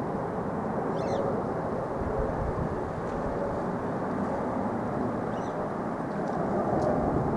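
Jet engine noise from an Emirates Boeing 777-300ER on final approach, a steady rumbling rush that grows a little louder near the end. A few short high chirps sound faintly above it, about a second in and again later.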